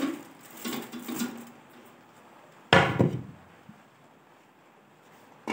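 Aluminium steamer pot and its perforated insert clanking once, loudly, about three seconds in, with a short metallic ring, as the foil-wrapped fish is set in to steam. Lighter knocks and rustles come before it.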